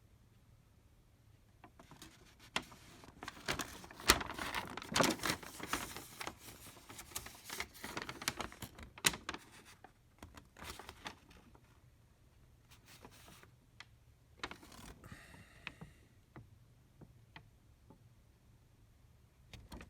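Door lock installation kit and its packaging handled: a flurry of irregular clicks, rattles and rustles, then scattered clicks about ten seconds in.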